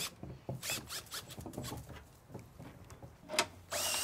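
Cordless Milwaukee drill cranking a trailer's scissor corner jack down to stabilize it: the drill stops at the start, followed by a few seconds of light scattered clicks and rattles. Near the end the drill spins up and runs steadily again.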